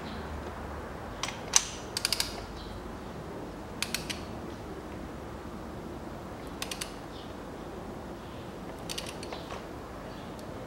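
Ratchet wrench clicking in short runs of a few quick clicks, about six times, as a spark plug is run down into its well.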